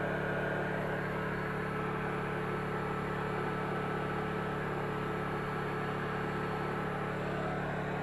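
Small portable generator running at a steady speed: a constant, even hum with a fixed pitch and no change in load.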